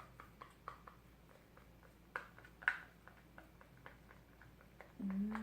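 Faint, scattered clicks and taps from handling and mixing slime ingredients, with two louder taps about two and a half seconds in. Near the end comes a short voiced hum that rises and falls.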